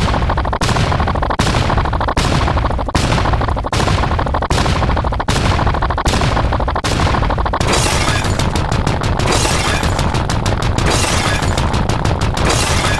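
A loud, harsh, noisy sound effect played over and over, each repeat cutting in sharply about every 0.8 s; about seven and a half seconds in, the repeats speed up to several a second.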